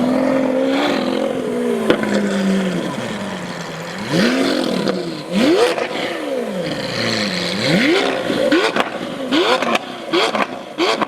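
2015 Lamborghini Aventador Roadster's V12 through a full iPE exhaust with cat bypass, held at a steady raised rev for about three seconds, then blipped repeatedly, the blips coming quicker near the end with sharp pops between them.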